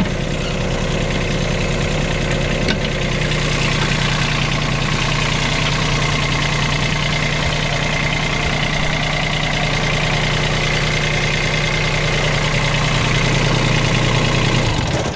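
Bobcat 553 skid steer's diesel engine idling steadily, with a faint high whine from a drive belt that needs tensioning. The engine is shut off right at the end.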